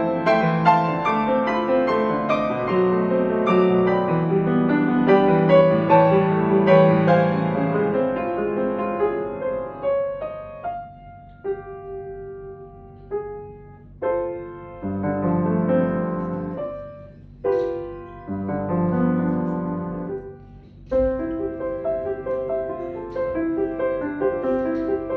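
Background music: piano playing, a busy flowing passage that thins out to sparse, separate notes about ten seconds in, then fills out again near the end.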